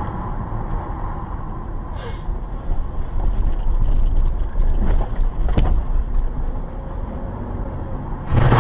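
Steady low rumble of a car on the move, as picked up by a dashcam, swelling a little about three seconds in, with a few faint knocks.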